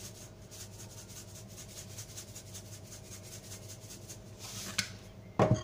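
Salt granules rattling in a cardboard salt canister as it is shaken over a bowl in quick repeated shakes, a soft scratchy hiss. A short thump near the end.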